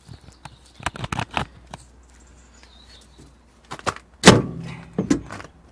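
Metal knocks and clanks from a pry bar levering a car's lower suspension arm into place: a few light knocks about a second in, then one loud clank with a short low ring about four seconds in and a smaller knock after it.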